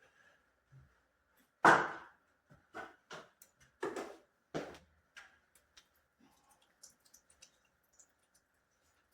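A series of knocks and clatters from hand work on plumbing fittings and tools: one loud knock just under two seconds in, then several lighter knocks and clicks over the next few seconds, over a faint steady high hum.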